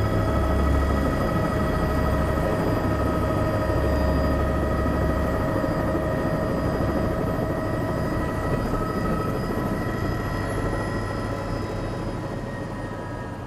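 Helicopter turbine and rotor heard from inside the cabin on the ground: a steady whine over a low rumble that slowly fades, the highest whine falling in pitch from about ten seconds in as the engine spools down after landing.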